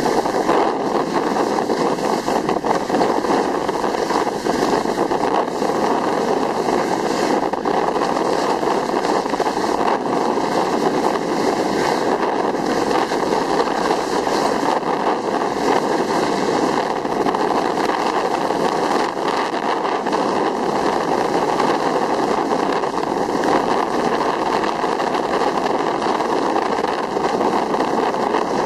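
Steady rushing noise of a fast downhill run on snow: the surface hissing and scraping underfoot, with wind buffeting the microphone.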